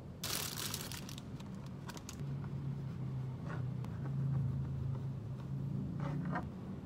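A brief crinkling rustle, then a knife cutting into soft bread rolls on a plastic cutting board with a few short rasping strokes, over a steady low hum.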